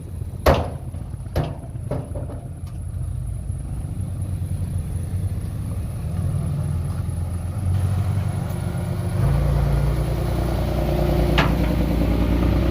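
Heavy diesel construction machine engine running, with a few sharp knocks in the first two seconds; the engine gets louder about nine seconds in.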